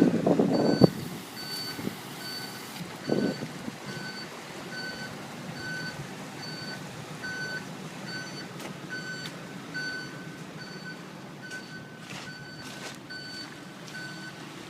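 A vehicle's reversing alarm beeping steadily, just under one beep a second, over a steady hiss. A loud burst of low rumbling noise comes in the first second, and a smaller one about three seconds in.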